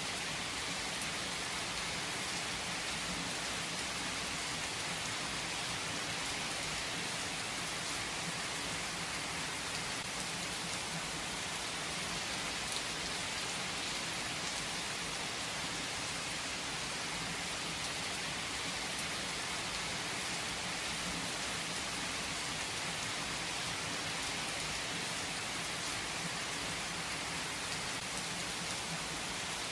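Heavy rain falling in a steady, even hiss that does not let up or change.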